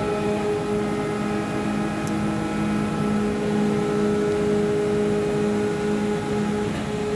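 Engel Victory VC 330/120 hydraulic injection moulding machine running, its pump motor giving a steady hum with a constant tone and overtones.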